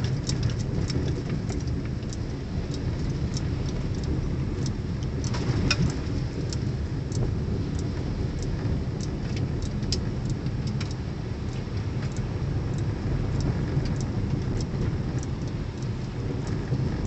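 Inside a car driving on a rough gravel road: a steady low rumble of tyres and engine, with scattered sharp ticks.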